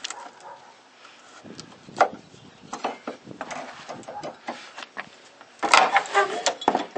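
A steel flat pry bar working a nail out of a wooden deck joist: scattered scrapes and clicks of the bar on wood and nail, with a sharper knock about two seconds in and a louder cluster of clicks near the end.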